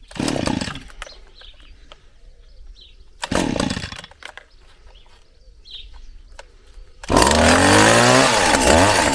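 Petrol hedge trimmer being pull-started: two pulls of the starter cord, then the engine catches about seven seconds in and runs, revving up and down. It is a cold start, the machine not having run since last summer.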